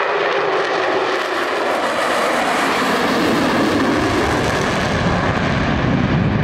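Jet noise from the Blue Angels' four F/A-18 Hornets flying in diamond formation: a steady, loud rush that grows deeper about halfway through.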